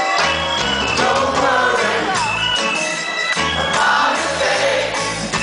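Live band playing reggae music, with a bass line and organ.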